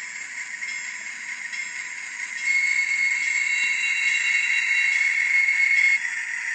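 HO-scale model freight train running past, giving a steady high whine with a hiss over it. It gets louder for a few seconds in the middle and then drops back.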